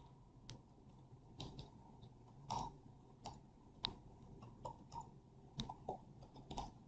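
Faint, irregular clicks of computer keyboard keys being typed.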